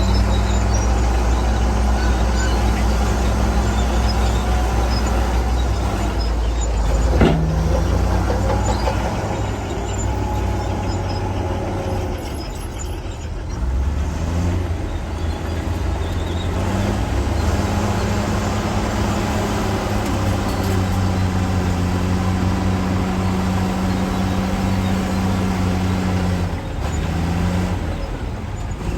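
Heavy diesel construction machinery running steadily, its engine note shifting pitch a few times. A single sharp knock comes about seven seconds in.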